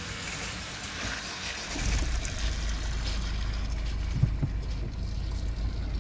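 Ford Focus Mk3 1.6 TDCi four-cylinder diesel engine starting from cold, catching about two seconds in and settling into a steady idle, heard from inside the cabin.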